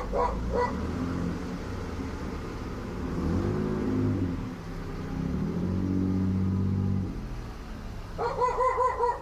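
A dog barks a few times at the start and again near the end in a quick run of yaps. In between, a car's engine runs and speeds up in two rising pulls.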